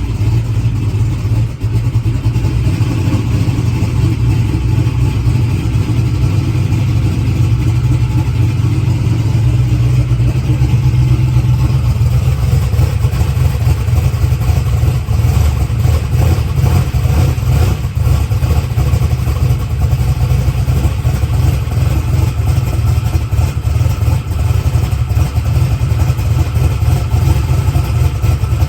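Small-block Chevy V8 in a boosted drag car idling cold, loud and steady, with valve-train noise that the owner puts down to no heat and no oil after the engine has sat for a month.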